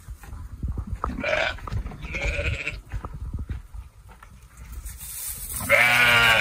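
Sheep bleating: a short bleat about a second in, another around two seconds, and a longer, louder bleat near the end, over a low, irregular rumble.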